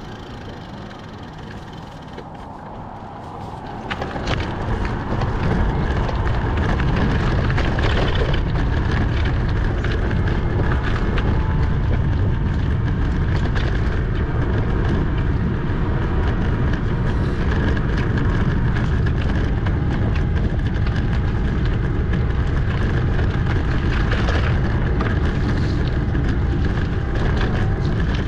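Wind rumbling on the microphone of a camera riding along a road on a bicycle, a steady low roar that grows much louder about four seconds in.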